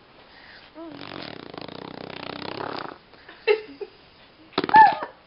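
Baby blowing raspberries, a wet lip buzz that sounds like farting, held for about two seconds, followed by a short buzz and then a louder buzzing burst with a brief squeal near the end.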